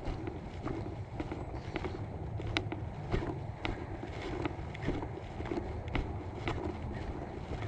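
Footsteps of a hiker walking on a dirt trail, about two steps a second, each with a soft thud and a light crunch or click.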